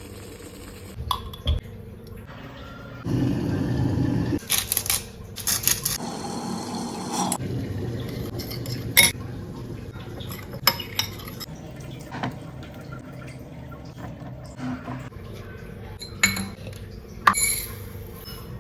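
Kitchen utensils and dishes clinking and knocking during food preparation: scattered sharp clinks, the loudest about nine seconds in and again near the end, with two longer stretches of noisy handling in the first half.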